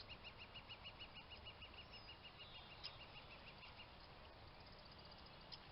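A bird calling a fast, even series of short high notes, about six a second, that stops about four seconds in; a few fainter, higher notes follow. Faint, against quiet outdoor background.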